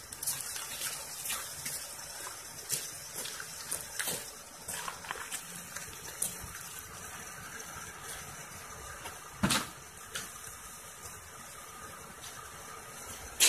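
Rustling and handling noise on a handheld phone microphone, with scattered clicks and one louder knock about nine and a half seconds in.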